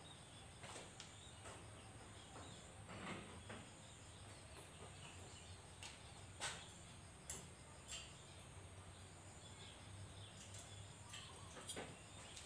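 Near silence: faint scattered clicks and light knocks of metal parts being handled on a buggy frame, over a faint steady low hum.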